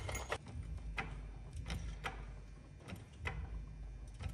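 Jack under the wheel being pumped to lift the spring-less suspension toward full bump: faint, irregular clicks, about one or two a second.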